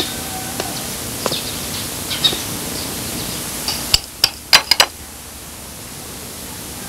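Birds chirping faintly over a steady hiss. A little after four seconds in, a metal knife and fork clink sharply against a plate four or five times.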